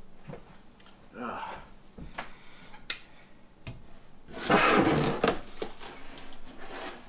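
Large cardboard shipping box being opened and its contents handled: scattered rustles, clicks and knocks, with a loud scraping rustle about halfway through.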